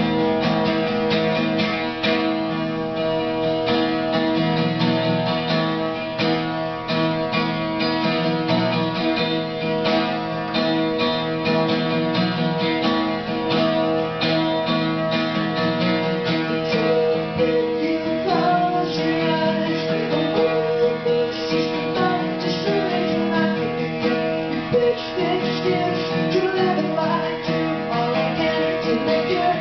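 Acoustic guitar strummed steadily in an instrumental passage of a live song, with a wavering melody line coming in over the chords about halfway through.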